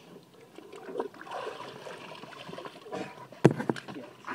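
Water splashing and sloshing beside a boat as a hooked tope shark thrashes at the surface and is hauled alongside. About three and a half seconds in there is a sharp knock, the loudest sound, followed by a few quicker ones.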